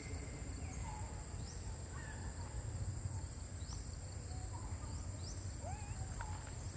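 Forest ambience: birds giving many short, high, rising chirps and a few brief lower calls, over a steady high whine and a low rumble.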